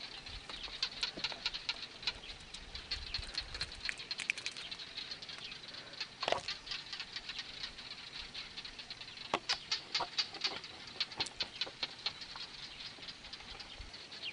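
Night ambience of a steady, high-pitched chirring, with irregular runs of sharp clicks and ticks over it. The clicks come thickest about a second in and again past the middle, with one louder click just after six seconds.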